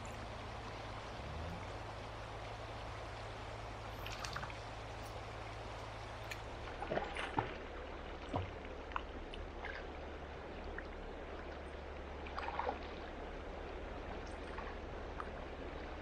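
Steady rush of a fast-flowing river, broken by a few short splashes as a hooked trout thrashes at the surface and is drawn into a landing net.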